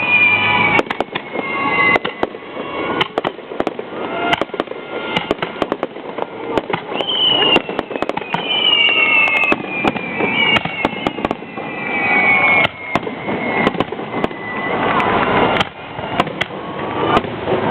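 Fireworks going off in quick succession: many sharp bangs and crackles, with several whistling tones that slide down in pitch.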